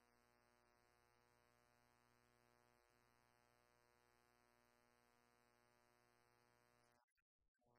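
Near silence: a faint steady electrical hum, breaking off in short dropouts about seven seconds in.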